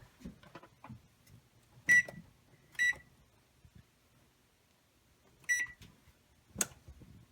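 Electronic oven control panel beeping three times as its keys are pressed to set the preheat temperature to 350. A single sharp knock follows near the end.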